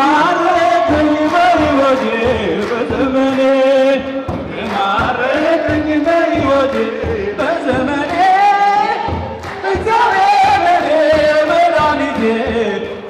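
A group of voices singing an Ethiopian Orthodox mezmur (church hymn) with hand clapping, the melody rising and falling in long held phrases.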